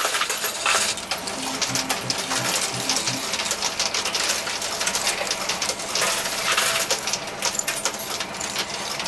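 Quarters clattering in a coin pusher machine: a dense, continuous run of small metallic clinks as coins drop and knock against the piled coins and chips.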